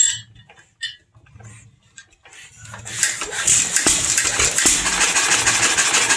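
A John Deere hit-and-miss engine is rolled over by hand with a few faint clicks. About three seconds in it catches and starts, then runs steadily and loudly.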